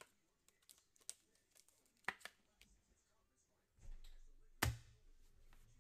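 Faint handling of trading cards on a tabletop: scattered light clicks and taps as cards are shuffled and set down, with one louder knock about two-thirds of the way in.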